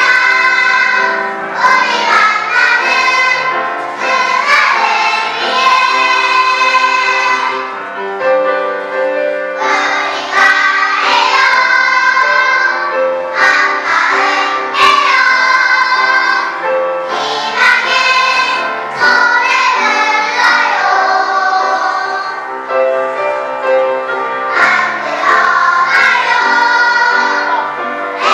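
Children's choir singing a song in phrases, with brief breaths between them.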